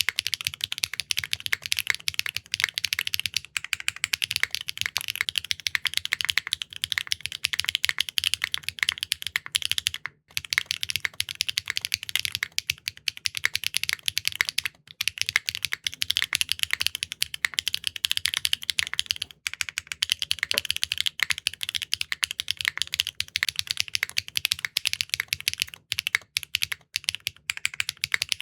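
Fast, continuous typing on a Neo65 Core Plus custom mechanical keyboard fitted with clacky linear switches, with quick sharp keystroke clacks. There are a few brief pauses in the typing about 10 and 15 seconds in.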